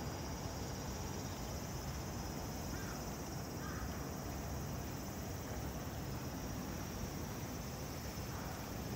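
Insects droning steadily in one high, even pitch, over a low background rumble.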